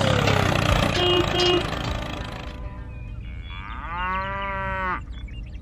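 Background music stops about two and a half seconds in. About four seconds in, a cow moos once, a single long call that rises slightly and then holds steady.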